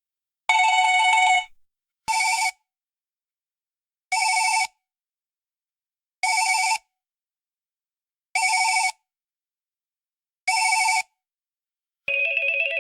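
Electronic cell phone ringtone ringing in separate bursts: a ring of about a second, then short half-second rings repeated about every two seconds. Near the end, a lower-pitched ring begins.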